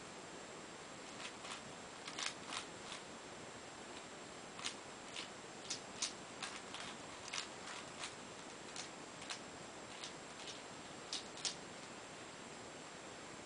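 Plastic layers of a Cube4You 3x3x7 cuboid puzzle clicking as they are turned by hand: irregular sharp clicks, often in twos and threes, starting about a second in and stopping a couple of seconds before the end, over a steady faint hiss.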